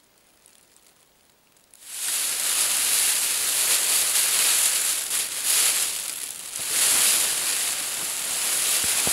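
Foil emergency space blanket crinkling and rustling loudly as it is pulled and wrapped around a seated person. It starts suddenly about two seconds in, after near silence.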